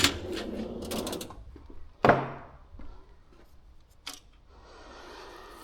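Metal tools and engine parts clinking and knocking as the number one piston's connecting rod is worked loose during the teardown: one sharp metallic clank with a short ring about two seconds in, a lighter click about two seconds later.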